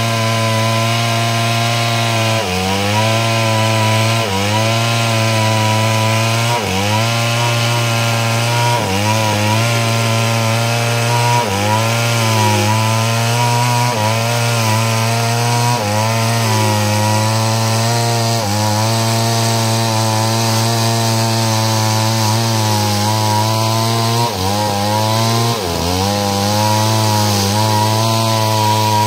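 Stihl two-stroke chainsaw running at high revs while ripping a log lengthwise into planks. Its pitch sags briefly and recovers every couple of seconds as the chain bites under load.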